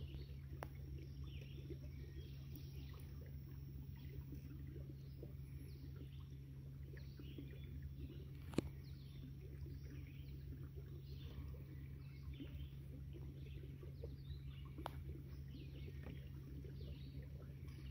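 Many short bird chirps and song phrases throughout, over the steady low hum of the kayak's small motor. One sharp click about halfway through.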